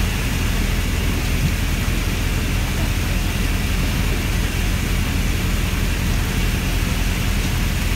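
A steady low engine rumble, like a fishing boat's engine running at idle, under a constant rushing hiss.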